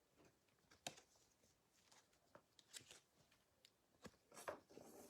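Near silence, with a few faint rustles and clicks of trading cards being handled: one about a second in and a small cluster near the end.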